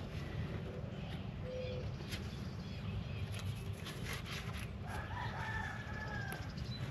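A rooster crowing once about five seconds in: one long call that rises, holds and falls away. Under it runs a steady low rumble of outdoor background noise.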